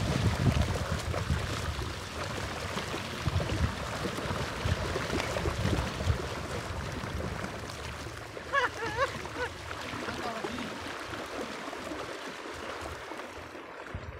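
Wind buffeting the microphone, strongest in the first couple of seconds, over small waves washing at the shoreline. A brief warbling call comes about nine seconds in.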